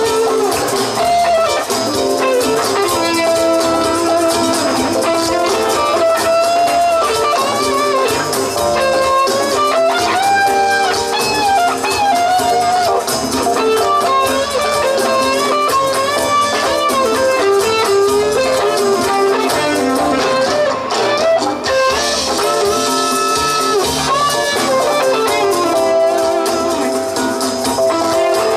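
Live Latin-rock band playing an instrumental break: a lead electric guitar solo of held and bending notes over drums and percussion.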